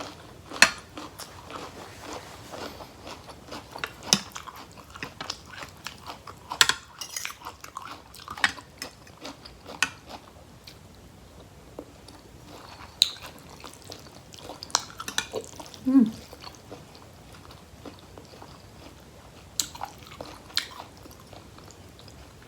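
Close-up eating sounds: chewing a mouthful of rice noodles with curry, broken by scattered sharp clinks of a spoon striking a bowl with a bumpy, ridged surface.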